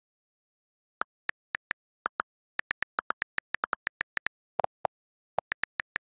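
iPad on-screen keyboard key clicks as a message is typed: a quick, irregular run of short sharp ticks, a few lower-pitched ones in the second half.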